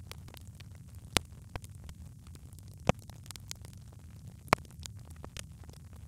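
Wood fire burning in a fireplace: a steady low rumble of flames with light crackling throughout, and three sharp pops of the burning logs about a second and a half apart.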